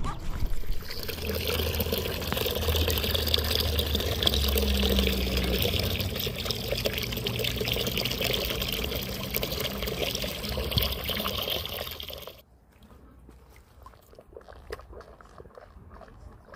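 Water pouring steadily, which stops abruptly about twelve seconds in, leaving only faint clicks.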